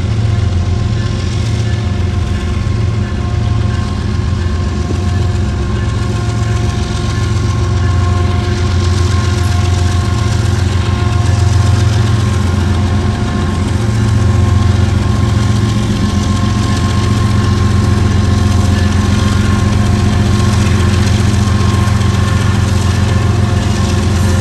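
Freight locomotives led by a GE ES44AC diesel-electric pass close by, their diesel engines running with a steady deep drone and a couple of steady whining tones that come and go above it.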